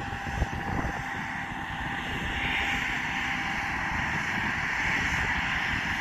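Combine harvester running while harvesting soybeans: a steady mechanical drone and hiss that grows slightly louder from about two seconds in as the machine draws near. A little wind buffets the microphone in the first second.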